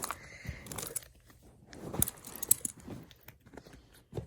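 Fidget toys being handled and moved about: irregular clicks, rustling and crinkly crunching.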